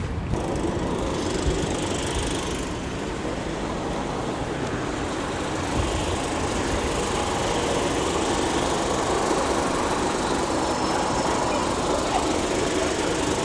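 Steady rumble of vehicle engines and motion noise, growing slightly louder about six seconds in.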